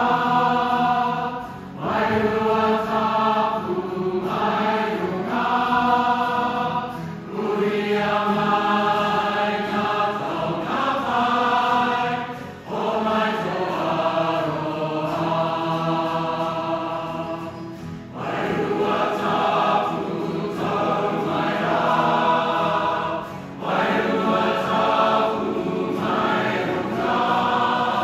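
Large mixed choir of men and women singing a slow hymn in Māori in sustained chords. The singing comes in phrases of about five seconds, each ending in a brief breath.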